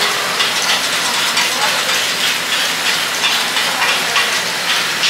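Takoyaki batter sizzling on a hot griddle in a steady hiss, with irregular light clicks and scrapes of metal picks turning the balls.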